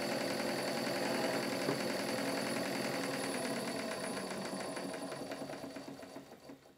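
Small model vertical steam engine running fast and turning a dynamo through a leather drive belt: a quick, even mechanical beat. It dies away over the last two seconds as the engine slows down.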